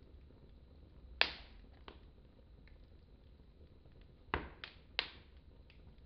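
Wood fire in a fireplace crackling: several sharp pops, one about a second in and a quick run of three near the end, over fainter scattered ticks.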